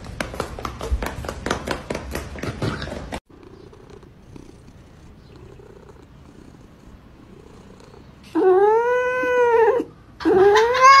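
Domestic cat giving two long, drawn-out meows near the end, each rising then falling in pitch and lasting over a second. Before that, rapid tapping of claws on a hard floor, which cuts off suddenly about three seconds in.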